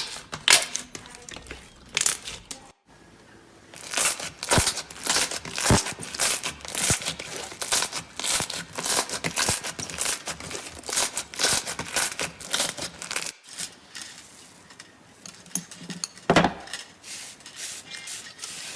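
Slime being worked by hand, making dense, irregular crackling and popping sounds, with abrupt changes a few times as one slime clip cuts to the next.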